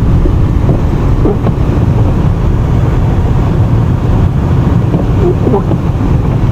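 Car driving slowly on a snow-covered road: steady low engine and road rumble.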